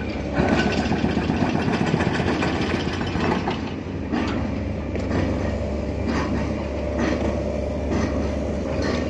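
Steady low diesel engine rumble of heavy construction machinery on a building site, with knocks repeating about once a second from about three seconds in.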